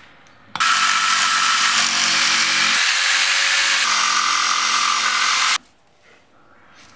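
Electric jigsaw cutting a laminate floor board to shape, running for about five seconds. It starts about half a second in and stops abruptly.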